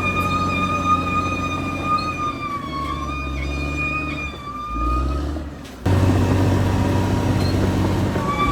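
Caterpillar D6R XL bulldozer's diesel engine running, with a steady high-pitched whine over it. The sound changes abruptly about six seconds in, then the whine comes back near the end.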